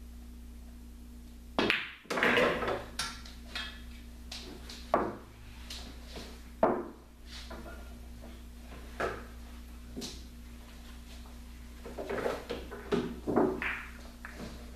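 Pool cue striking the cue ball about a second and a half in, followed at once by a rattle of billiard balls colliding. Single knocks come every second or two after that, then a quick run of balls knocking together near the end.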